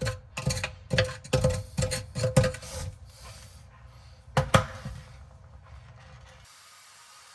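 Quick series of sharp clicks and knocks from handling the plastic parts in a dishwasher's sump, about three a second for the first three seconds, then two loud knocks a little past the middle.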